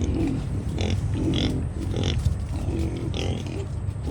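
Pigs squealing and grunting in a run of short calls, about one every half second to second, over a steady low hum.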